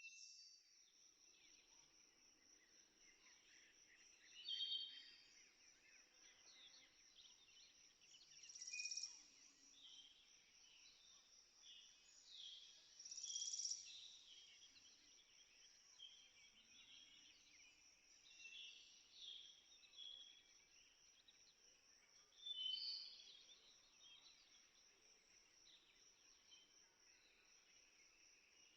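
Faint birds chirping over a steady, high-pitched insect-like trill, with a few louder bursts of chirping.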